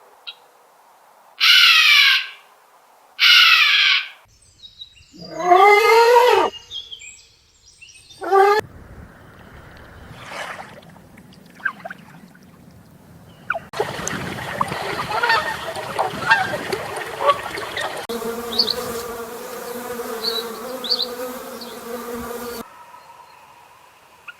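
Animal calls: four loud, wavering cries in the first several seconds, one of them rising in pitch. Then quieter outdoor ambience with a few short high chirps.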